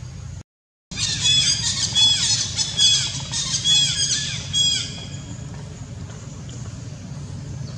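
A series of about five loud, high-pitched squealing animal calls, each rising and falling, coming roughly once a second after a brief drop-out and then stopping, over a steady low hum.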